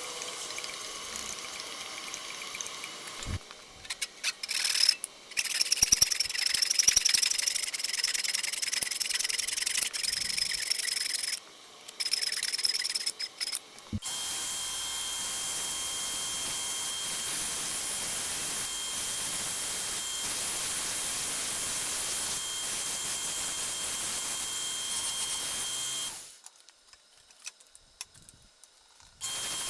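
Workshop power tools running in several short cut-together stretches, each a steady motor whine over grinding or sanding noise. A brief near-silent gap comes near the end.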